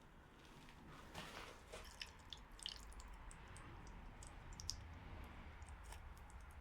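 Near silence: a low steady hum with faint scattered ticks and crackles.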